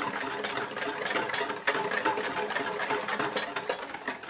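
Wire balloon whisk beating egg yolks in a stainless steel bowl: a fast, continuous rattle and clicking of wires against the metal. The yolks are kept moving while hot cream is added, tempering them so they don't curdle.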